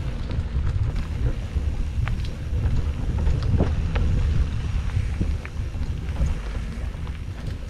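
Wind buffeting the microphone of a camera on a moving mountain bike, over a steady low rumble from the tyres rolling on a dirt single track. Scattered sharp clicks and rattles from the bike on the rough trail.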